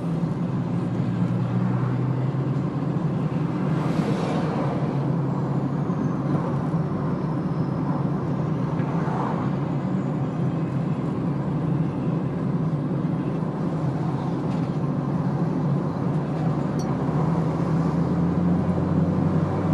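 Steady road and engine noise of a car heard from inside its cabin at low speed, with a low hum under it and a couple of brief swells from other traffic. It grows slightly louder near the end as the car picks up speed.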